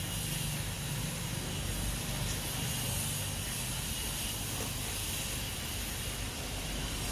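Steady hiss of the burner heating a flat-top griddle, with a low hum beneath it that holds level throughout.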